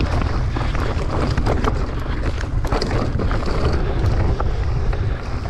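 Wind buffeting the camera microphone over the noise of a mountain bike rolling fast down a dirt singletrack, with frequent small knocks and rattles as the bike goes over rough ground.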